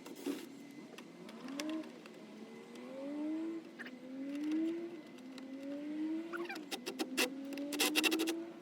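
A motor vehicle's engine accelerating through several gears, its pitch rising steadily and then dropping at each shift, four rises in all. A quick run of sharp clicks and taps near the end.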